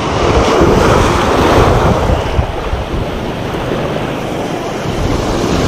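Sea surf breaking and washing over shoreline rocks, a steady rush of water, with wind buffeting the microphone.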